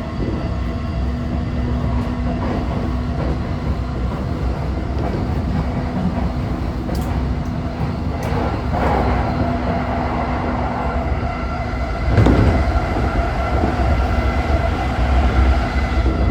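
Inside a JR E233-5000 series electric motor car running at speed: a steady rumble of the wheels on the rails, with steady whine tones from the traction equipment. There is a louder rush about twelve seconds in.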